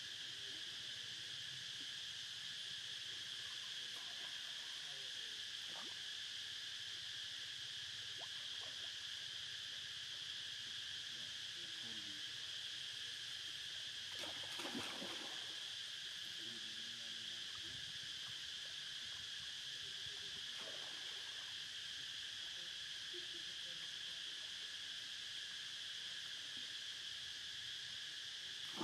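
Insects droning steadily in a high, unbroken chorus, with a short louder noise about halfway through.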